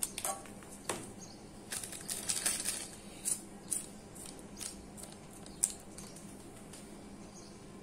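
Scissors snipping open a foil instant-noodle seasoning sachet, then the foil packet crinkling as the spice powder is shaken out onto dry crushed noodles in a metal saucepan. A series of crinkles and sharp clicks, busiest in the first few seconds, with a few single ticks later.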